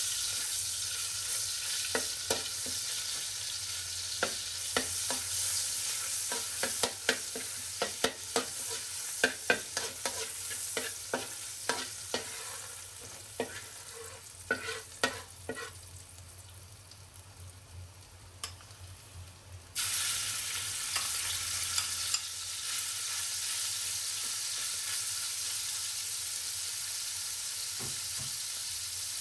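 Metal spatula scraping and tapping against a stainless-steel wok over sizzling oil, many sharp clicks. About two-thirds of the way in the sizzle jumps suddenly louder as minced pork goes into the hot oil, then it settles into steady sizzling.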